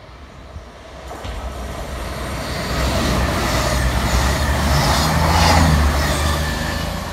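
CrossCountry diesel passenger train running through the station at speed: a low engine drone with rushing wheel and air noise builds from about a second in, peaks shortly before the end, then begins to fade.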